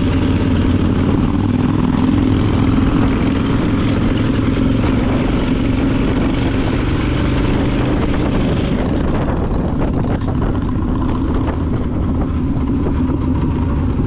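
Motorcycle engine running steadily on the move, under rushing wind and road noise that eases about nine seconds in.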